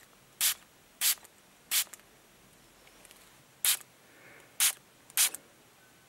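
Hand-pumped water mister spray bottle squirting fine mist: six short, sharp hisses at uneven intervals, three in the first two seconds and three more in the second half.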